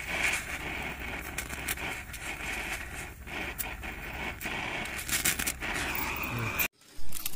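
Electric welding arc crackling and sizzling steadily with many sharp cracks, over a low hum. It cuts off abruptly near the end, followed by a brief loud noise.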